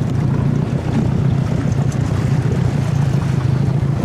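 Motorboat engine running steadily, with a constant low hum under wind and water noise.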